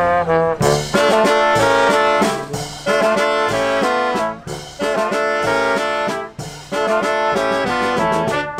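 Live brass band playing: tuba, trombone, saxophone and trumpets over bass and snare drums, with brief pauses between phrases.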